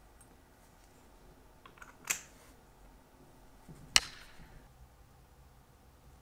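Two sharp, short clicks about two seconds apart, the second the louder with a brief ring after it, and a few faint ticks just before the first: small metal tools or watch parts being set down and handled on a watchmaker's bench.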